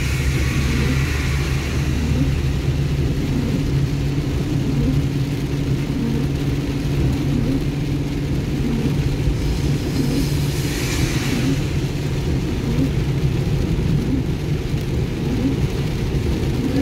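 Steady engine and tyre drone heard inside a car cabin while driving on a wet road, with a brief louder hiss about eleven seconds in.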